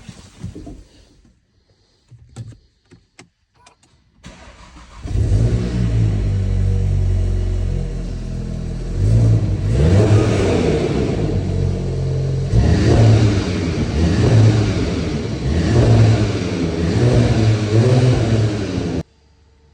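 A few light clicks, then a 2019 VW Golf GTI's 2.0-litre turbocharged four-cylinder petrol engine starts about four seconds in and settles into a steady idle. From about the middle it is revved in a series of short blips, falling back between each, until the sound cuts off suddenly near the end.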